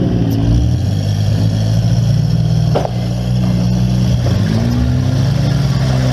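Demolition-derby minivan's engine running loud inside the stripped cabin, its revs dropping and climbing again about four seconds in, with a short knock near the middle.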